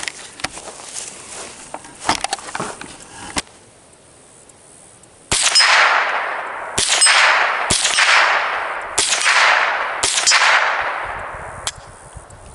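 Five .22 rimfire shots from a Ruger 10/22 rifle, each hitting a hanging steel plate target, which rings out and fades over about a second after every hit. The shots come about a second to a second and a half apart, starting about five seconds in.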